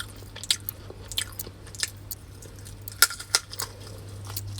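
A person chewing and biting food close to the microphone: irregular small wet clicks and crunches, over a steady low hum.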